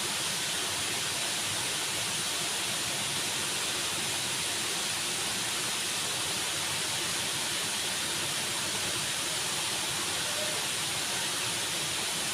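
Waterfall: a steady rush of falling water with a bright hiss, unchanging throughout.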